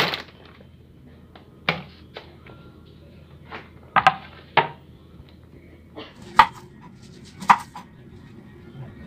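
Scattered knocks and taps on a hard surface: a noodle packet and a milk carton set down on a countertop, then a knife cutting an onion on a wooden chopping board. A faint steady low hum lies underneath.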